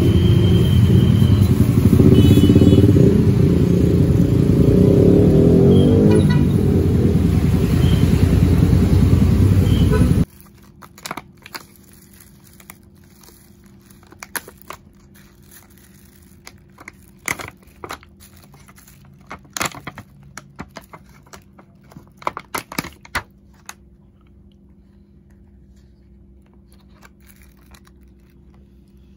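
Steady din of street traffic, engines running and passing, for about the first ten seconds. Then it cuts abruptly to a quiet room where a plastic bag is crinkled and rustled open in short, scattered bouts.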